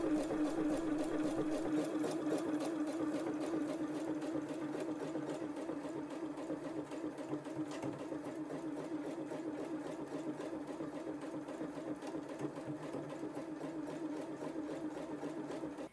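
Janome 5270 QDC computerised sewing machine running hands-free on its start-stop button, stitching a programmed lettering pattern: a steady motor hum with rapid, even needle strokes. It stops suddenly at the very end.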